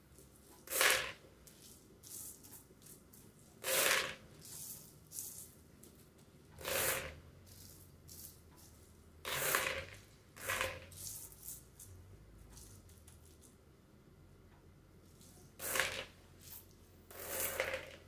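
Dried beans being swept by hand off a table into a plastic bowl: about seven rattling pours as small handfuls drop in. Softer ticks and scrapes come between them as beans are pushed across the tablecloth.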